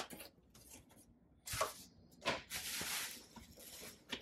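Clear plastic packaging wrap inside a cardboard box crinkling and rustling under a hand, in a few short bursts with a longer one about two and a half seconds in.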